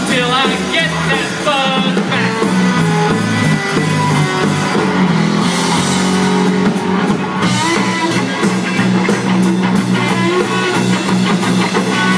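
Live rock band playing: electric guitars and a drum kit with cymbals, with sliding notes near the start.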